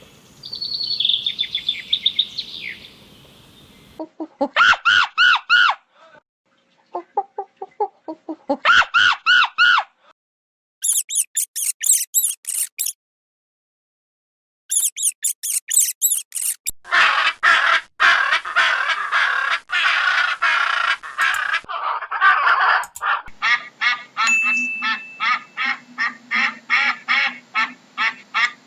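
Farm fowl calling: a string of short clips of rapid, repeated bird calls, cut one after another with brief silent gaps between them. Near the end comes a long run of even, rhythmic calls, several a second.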